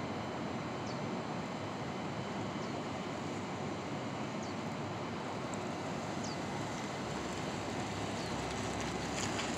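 Steady outdoor background noise, an even rushing haze with a faint short chirp repeating about every two seconds.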